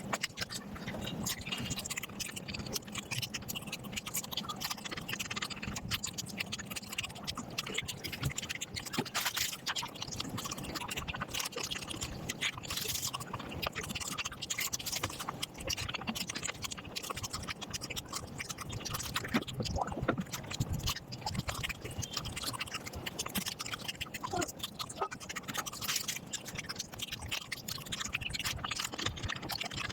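Eating sounds sped up to five times normal speed: a dense, unbroken stream of chewing, smacking and scratchy scraping of food.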